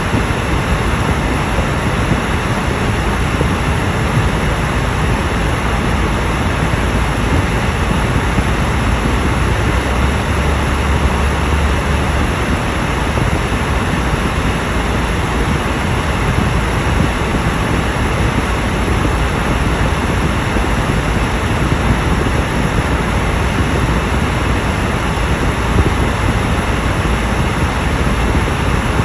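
Car driving at highway speed heard from inside the cabin: a steady, even rumble of tyre and road noise with hiss over it.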